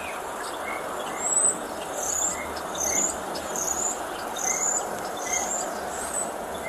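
A bird chirping, short high notes repeated a little more than once a second, starting about a second in, over a steady background hiss.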